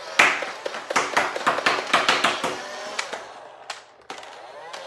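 Plastic clacking of a Nerf Hyperfire blaster being worked by hand, a quick run of sharp clicks for about two and a half seconds, then two separate clicks near the end.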